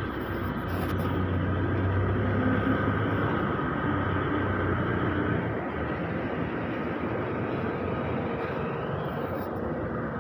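Mitsubishi Canter light truck's diesel engine running as the truck drives slowly past, over a steady rumble of engine noise. The low engine hum drops away about halfway through.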